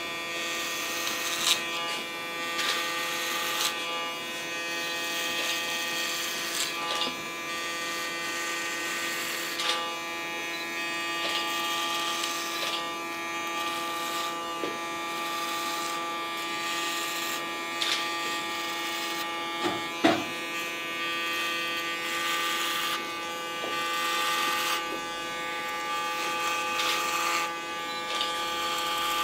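Cordless electric hair clipper running with a steady buzz, rasping each time the blades pass through the hair as it shaves the nape and back of the head short. A sharp click about two-thirds of the way in.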